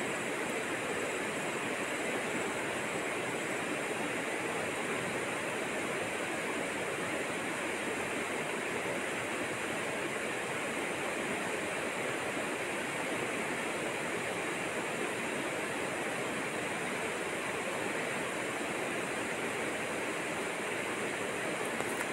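Steady, unbroken rushing noise that stays the same throughout.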